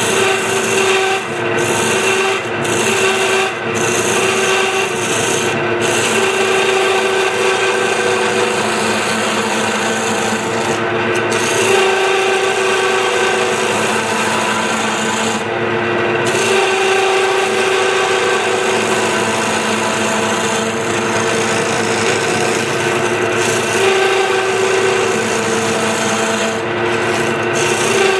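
Wood lathe running while a turning chisel cuts a spinning wooden blank down to round: a continuous scraping hiss of the cut over the steady hum of the lathe, broken briefly several times.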